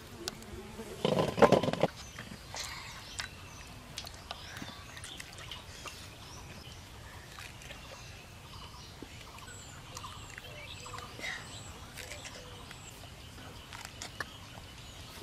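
Rural outdoor ambience with small birds chirping faintly here and there. A short, loud sound about a second in stands out above it.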